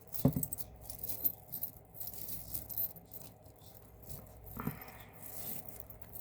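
Costume jewelry pieces clinking and jangling together as they are handled, a run of small metallic clicks, loudest about a quarter-second in. A softer dull knock comes about three-quarters of the way through.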